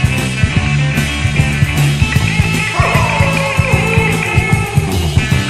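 1976 rock recording: a band with drums, bass and electric guitar playing, with a sliding lead line coming in about halfway through.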